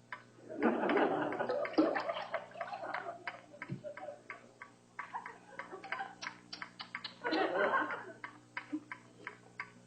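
Rapid, irregular ticks of water dripping from a leaking roof, with two swells of studio audience laughter, one near the start and one near the end.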